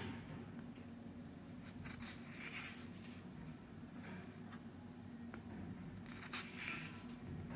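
Sketchbook pages being turned by hand: a soft paper swish or rustle with each page, four or so spaced a couple of seconds apart, over a low steady hum.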